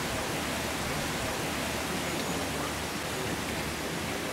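Steady hiss of rain falling during a thunderstorm.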